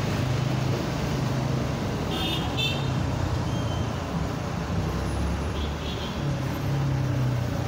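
Road traffic with car engines running steadily. Short high-pitched horn toots come about two and a half seconds in, and a fainter one near six seconds.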